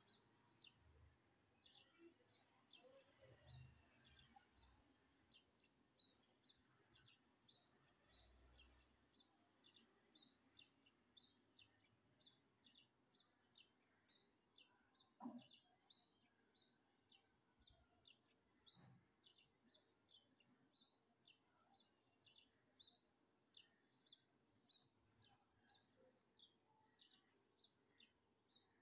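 Faint, repeated short high chirps of a small bird, about two a second, over near silence. A single soft knock comes about halfway through.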